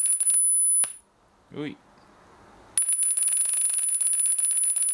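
Small plasma-TV speakers driven straight from a variable frequency drive's three-phase output give a steady, piercing, high-pitched whine from the drive's switching, with a fast rattle in it. The whine cuts off just under a second in and comes back on about three seconds in.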